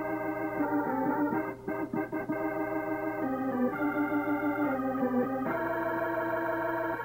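Organ music playing held chords, the notes stepping to new pitches every second or so.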